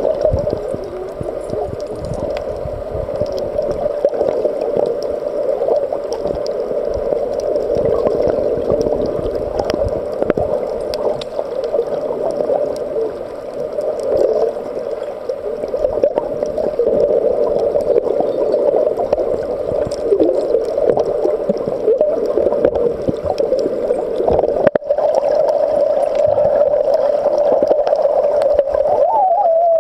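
Underwater sound in the Red Sea: a steady drone with gurgling and crackling water noise under it. Near the end a tone slides downward, one of the strange underwater sounds the uploader points out.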